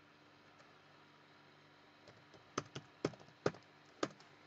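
Typing on a computer keyboard: a run of irregularly spaced keystrokes begins about two seconds in, after a quiet stretch.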